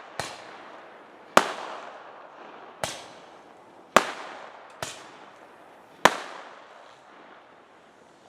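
Fireworks going off: six sharp bangs at uneven gaps of about a second, each trailing off in a fading echo, with the last about six seconds in.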